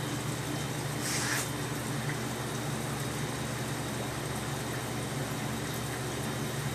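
Steady low hum and hiss of running aquarium equipment, with a short hiss about a second in.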